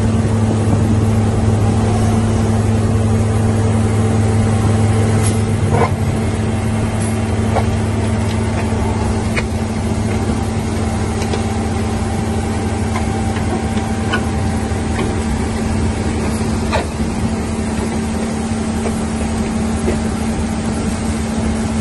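Slipform concrete curb machine running as it extrudes curb: a steady diesel-machinery drone with a constant hum. The deepest part of the drone eases about six seconds in, and a few light clicks or knocks come now and then.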